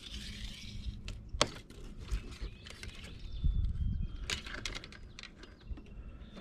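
Handling noises in a kayak as a northern pike is held on a metal lip-grip tool: scattered sharp clicks and knocks, the loudest about a second and a half in and a cluster about four seconds in, with a low thump between them. Faint bird chirps are heard now and then.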